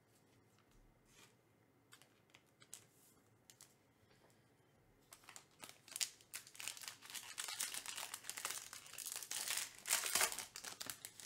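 Foil wrapper of a 2024 Topps Museum Collection baseball card pack being torn open and peeled apart by hand, crinkling. A few faint clicks come first, the tearing and crinkling start about five seconds in and are loudest near the end.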